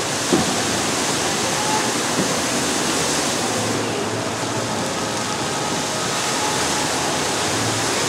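Steady rushing splash of a tall vertical fountain jet falling back into a pool of water. A brief knock sounds near the start.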